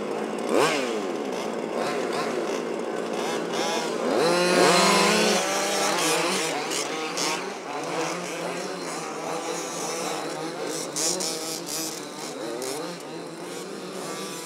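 Several 1/5-scale gas RC cars' small two-stroke engines buzzing and revving as they race, their pitches rising and falling over one another, with one loud rising rev about four seconds in.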